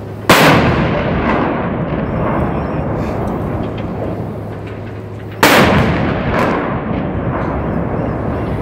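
Artillery salute: ceremonial guns firing blank rounds, two volleys about five seconds apart. Each is a sudden loud bang followed by a long echoing tail that slowly dies away.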